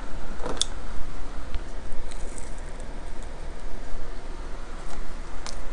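A person chewing a mouthful of pizza close to the microphone, with a few sharp wet mouth clicks, over a steady low hum.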